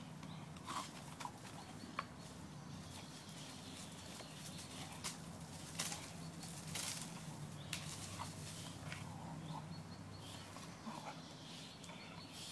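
Small dog growling low and steadily while tugging and shaking a rope toy hanging from a tree, with scattered rustles and scuffs from the rope and its paws on leafy dirt. The growl weakens near the end.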